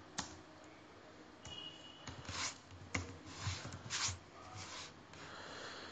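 A few soft, scattered keystrokes on a computer keyboard, spaced out with pauses between them.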